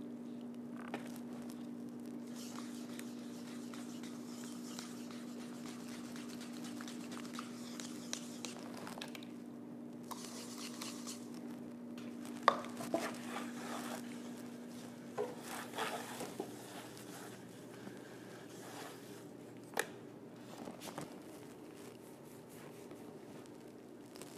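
Paintbrush working over a painted backdrop: soft brushing and scraping with scattered sharp clicks and knocks, the loudest about halfway through, over a steady low hum that stops about two-thirds of the way in.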